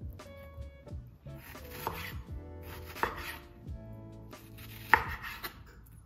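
A knife cutting food on a cutting board: a few slow cuts, the sharpest about 2, 3 and 5 seconds in.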